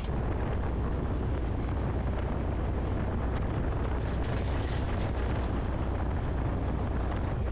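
Christen Eagle biplane's Lycoming four-cylinder engine and propeller running steadily at low power while taxiing, a constant low drone heard from inside the cockpit.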